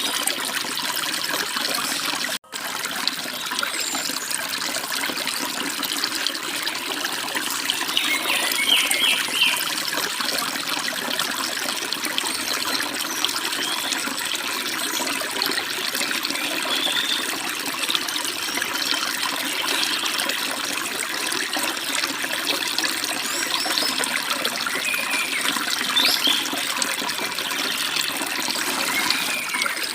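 Babbling stream running steadily, with small birds chirping now and then over it. The sound cuts out for an instant about two seconds in.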